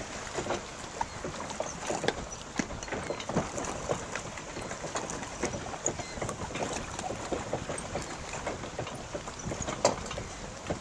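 Choppy water lapping and splashing, with many small irregular slaps over a steady rush of wind noise.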